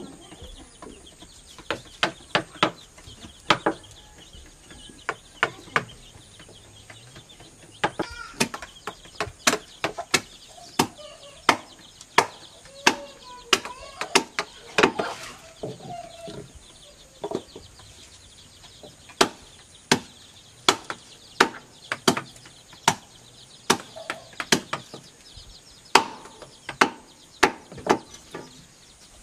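Machete chopping and hewing wood by hand: sharp knocks of the blade into the wood at an irregular pace, one to three strikes a second. Hens cluck now and then in between.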